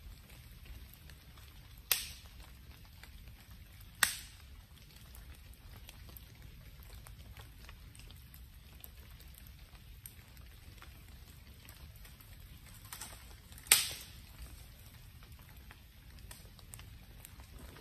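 Wood campfire crackling, with many small ticks and three loud sharp pops: two close together early on, about two seconds apart, and one near the end.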